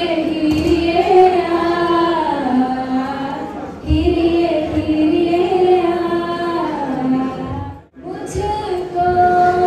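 Female voices singing into handheld microphones through a sound system, in phrases of long held, gliding notes about four seconds long. There is a short break near the middle and a sharp drop just before the end.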